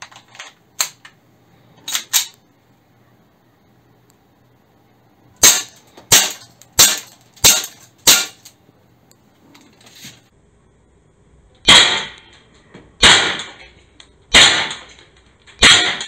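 ASG (KJW) CZ Shadow 2 gas blowback airsoft pistol being loaded and fired: a few light clicks as the magazine is seated and the pistol readied, then five sharp shots about two-thirds of a second apart, a pause of a few seconds, then four more shots spaced more widely, each ringing a little longer.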